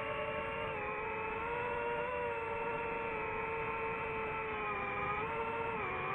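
DJI FPV drone's motors and propellers whining steadily in flight, the pitch sagging briefly about five seconds in as the throttle changes.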